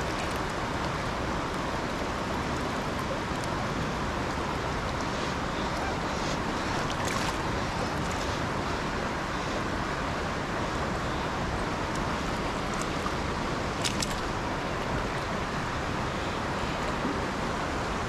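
Mountain stream water rushing steadily, with a couple of faint clicks.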